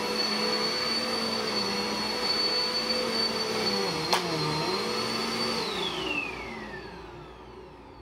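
Upright vacuum cleaner running with a steady motor whine, a sharp click about four seconds in, then switched off: the whine falls in pitch as the motor spins down.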